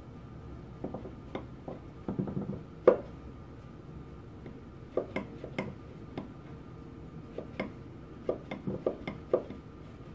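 Scattered metallic clicks and knocks from a screwdriver turning a gib screw and the steel slide of a Linotype knife block being worked by hand during adjustment. There is one louder knock about three seconds in.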